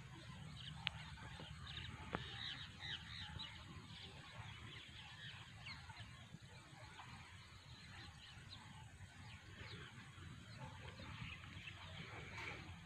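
A poultry flock calling faintly: many scattered short clucks and cries from Kadaknath and country chickens, overlapping, over a low steady hum.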